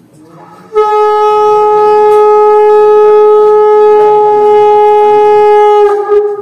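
A conch shell (shankha) blown in one long, steady, loud blast of about five seconds, starting about a second in and wavering briefly as it ends.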